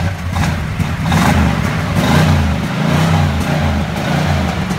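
Exhaust of a Cadillac Fleetwood Brougham's 5.7-litre small-block V8 running, rising and falling in several swells under throttle.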